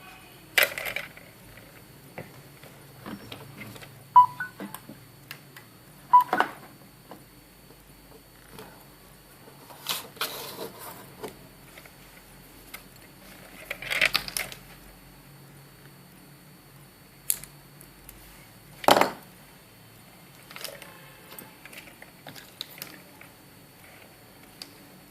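Scattered handling noise from small tools and earphone parts on a workbench: separate clicks, taps and short rattles every few seconds, with two very brief high blips about four and six seconds in.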